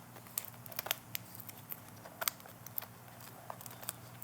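Scattered small, irregular clicks and crinkly taps as the LCD ribbon cable is slowly worked into its connector on a Dell 3110 2-in-1 Chromebook.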